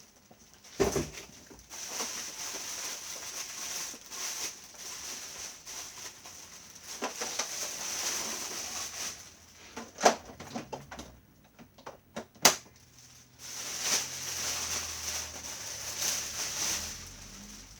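Rustling and handling noise from packaging and vacuum-cleaner parts being unpacked and fitted together, broken by a few sharp clicks and knocks, the loudest about ten seconds in and another a couple of seconds later.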